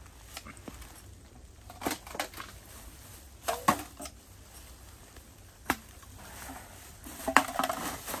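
Footsteps crunching in frozen snow: about six sharp, irregular crunches and clicks over a faint background hiss.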